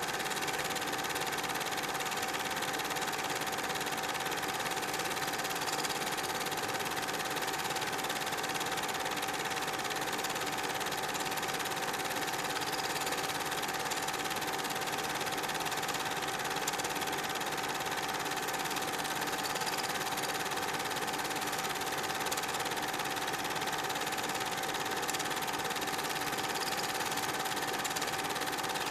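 Super 8 film projector running steadily: a continuous mechanical whir and clatter with a constant hum underneath, unchanged throughout.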